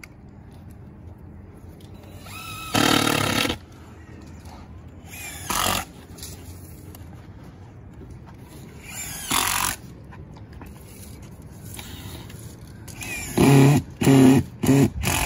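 Cordless drill driving screws into OSB plywood roof sheathing: a longer run about three seconds in, two short runs, then several quick bursts near the end as the screws are seated.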